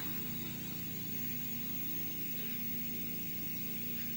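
Steady low electrical hum with a faint hiss: mains hum and room tone, with nothing else sounding.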